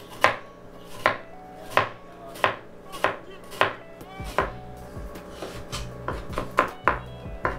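Chef's knife chopping an onion on a plastic cutting board. Evenly spaced sharp strikes come about one every 0.7 s, then quicker, lighter chopping through the second half as the onion pieces are chopped finer.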